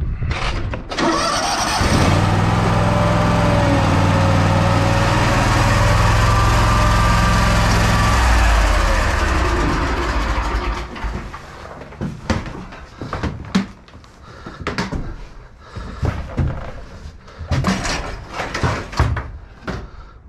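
Gravely zero-turn mower's engine running steadily under a loud rush of noise, cutting off about eight to nine seconds in. After that, scattered short knocks and bangs.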